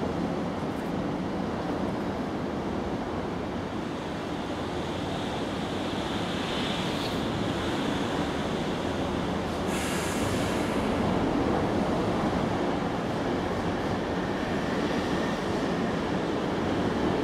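Steady low rumbling background noise, a little louder from about ten seconds in, with a brief hiss about ten seconds in.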